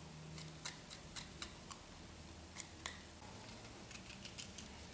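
Small kitchen knife cutting and scraping morel mushrooms clean, heard as faint, irregular sharp clicks.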